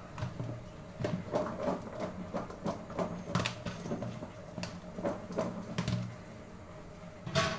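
Kitchen knife cutting peppers by hand into a plastic container: irregular light clicks and knocks, about two a second.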